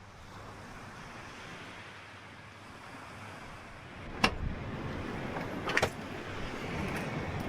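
Steady rushing of wind and surf. A sharp knock comes about four seconds in, followed by a couple of quick clicks a second and a half later.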